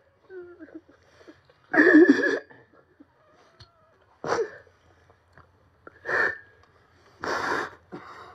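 A man sobbing into a microphone: a few separate bursts of crying and sharp breaths a couple of seconds apart, the first with a short broken cry.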